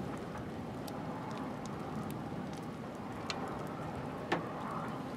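Outdoor storm ambience: a steady rumbling noise with scattered short ticks, and two sharper clicks about three and four seconds in.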